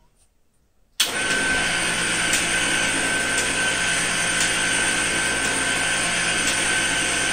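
Electric winch motor starting about a second in and running steadily with a constant whine and a faint click about once a second, hoisting a roughly 545-pound battery pack.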